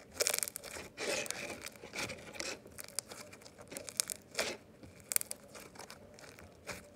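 Slime squeezed and kneaded by hand close to the microphone, a run of irregular short crackles and squishes.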